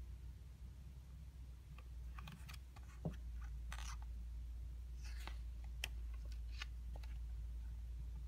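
Pages of a small paperback artbook being handled and turned: soft paper rustles and light clicks, scattered through the second half, over a low steady hum.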